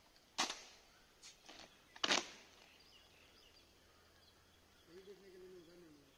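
Two loud foot stamps about a second and a half apart, with a few softer knocks between them, typical of drill movements.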